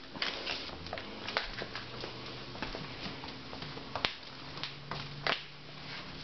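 Scuffling taps and clicks of an Airedale puppy tussling with a string mop on a tile floor: claws and paws scrabbling and the mop head slapping the tiles, with a few sharper knocks, the loudest about four seconds in.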